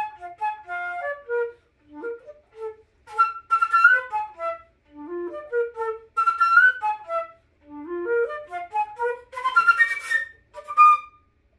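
Unaccompanied concert flute playing quick phrases of short, running notes with brief breaths between them, ending on a final note near the end.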